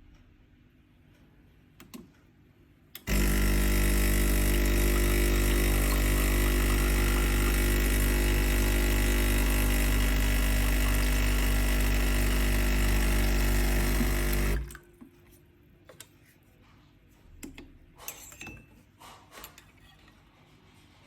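Espresso machine's pump running with a loud, steady buzz and low hum, starting suddenly a few seconds in and cutting off after about eleven seconds. The machine is pumping water that is not being heated.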